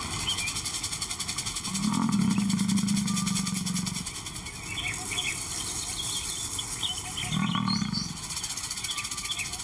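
Male lion calling with low, drawn-out roars: a long one about two seconds in and a shorter one near the end.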